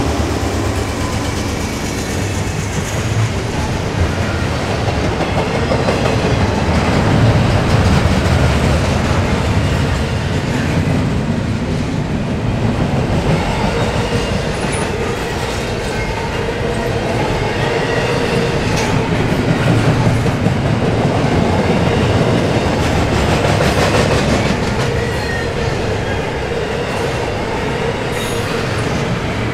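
Double-stack intermodal container train rolling past close by, a steady loud noise of steel wheels on rail and passing well cars.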